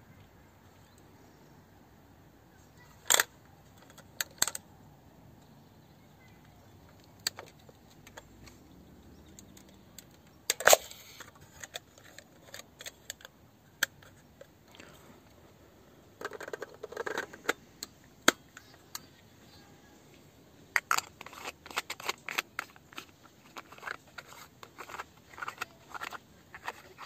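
Clicks and clacks of metal camera parts as a Salut medium-format film camera is handled. There are a few sharp clicks, the loudest about three and eleven seconds in, then a dense run of small clicks and rubbing over the last several seconds.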